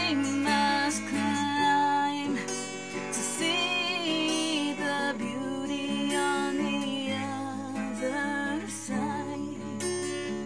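Acoustic guitar playing, its chords and notes ringing on one into the next.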